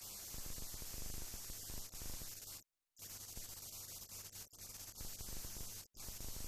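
Steady hiss and static with a low hum underneath, cutting out abruptly to silence twice, like a splice.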